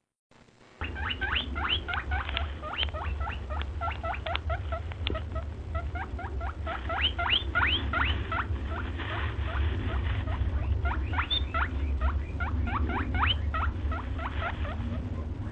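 Rapid high squeaking from a small animal, several short rising squeaks a second, over a steady low hum.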